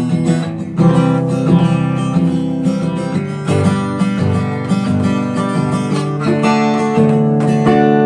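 Acoustic guitar strumming chords, changing chord about a second in and again every few seconds.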